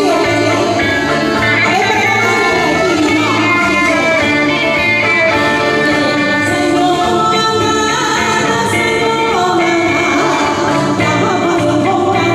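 Live small band playing amplified music: saxophones over electric bass and keyboard, with a woman singing into a microphone. Steady, continuous, without breaks.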